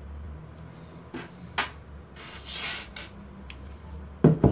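Metal mini lathe chuck body handled with a screwdriver: a few light clicks and a short scrape, then two heavy thumps near the end as the chuck body is set down on a wooden workbench. A steady low hum underlies it all.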